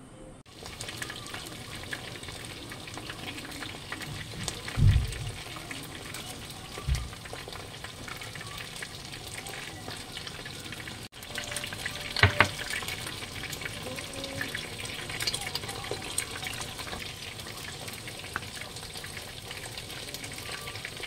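Breaded shrimp deep-frying in hot oil: a steady crackling sizzle. A few dull knocks come through it, the loudest about five and twelve seconds in.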